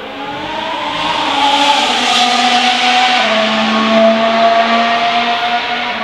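A 2022 Formula 1 car's turbocharged V6 running at high revs out on the circuit, heard from outside the track. Its pitch rises and it grows louder over the first two seconds, then steps down a little after three seconds in and holds steady.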